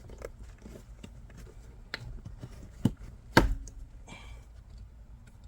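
Hands working a car's plastic door sill trim and its retaining clips: handling noise with a few sharp clicks and knocks, the loudest about three and a half seconds in.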